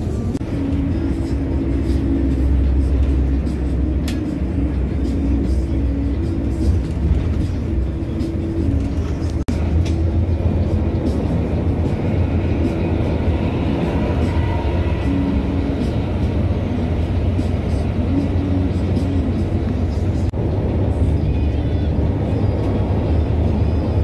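Steady low rumble of a coach bus travelling at speed on a highway, with music playing over it.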